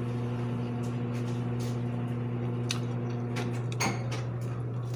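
A steady low hum, with a couple of sharp knocks, like cupboard or kitchenware handling, about two and a half and four seconds in.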